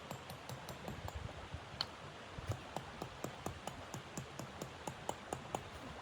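A quick series of short, sharp taps or crunches, about four a second through the middle of the stretch, over a steady low hiss.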